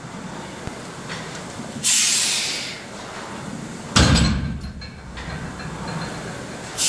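Heavy deadlift of a 315 kg barbell: a sharp hissing breath about two seconds in, a heavy thud as the loaded bar's plates meet the floor about four seconds in, then another hissing breath near the end as the bar is pulled to lockout.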